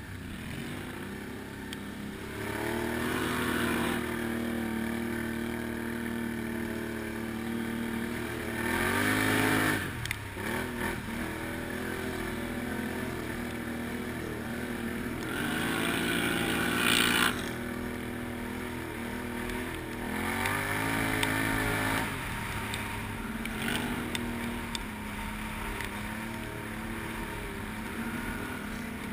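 Can-Am Outlander ATV's V-twin engine running under load as the quad is ridden over rough dirt, its revs rising and falling several times with the throttle. A rush of noise comes with the loudest rev a little over halfway through.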